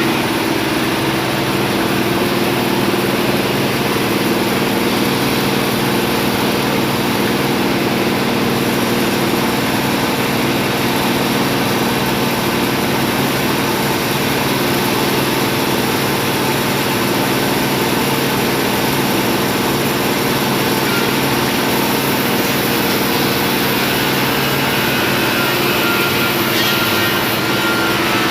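An engine running steadily at an unchanging speed, a continuous loud mechanical drone.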